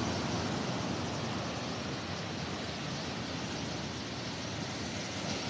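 Ocean surf breaking and washing up the sand, a steady rushing with a low rumble and no distinct crashes.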